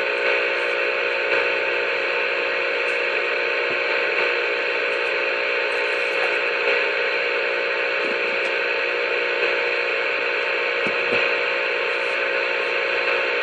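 Steady hiss with a held, buzzing drone of several steady tones coming over a CB radio's speaker: a station holding its transmitter keyed up on the channel, sending noise instead of talk.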